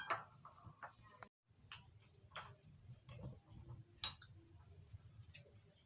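Faint scattered clicks and light clinks of plates and eating utensils during a shared meal.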